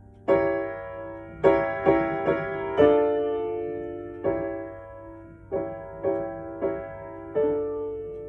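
Piano improvisation played slowly: single notes and chords struck one at a time and left to ring and fade, about ten strikes in all with pauses between them.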